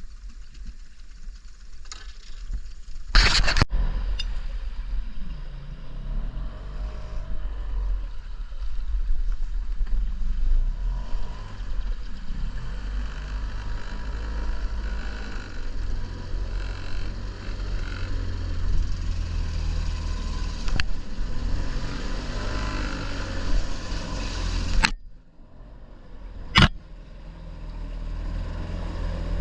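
A motor running steadily with a low rumble, with a loud knock about three seconds in; the sound drops away abruptly near the end before building again.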